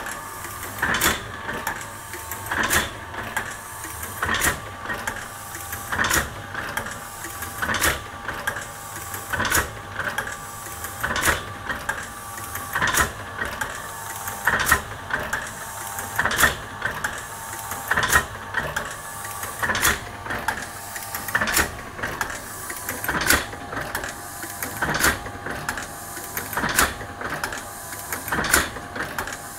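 Thompson automatic platen press running empty under its single-phase electric motor, clattering in a steady rhythm: a loud clack about every 1.7 seconds with lighter clicks between, over a steady hum.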